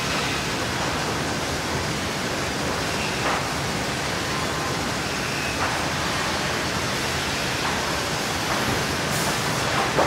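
Sawmill machinery running: a steady, dense noise with a few faint, brief swells.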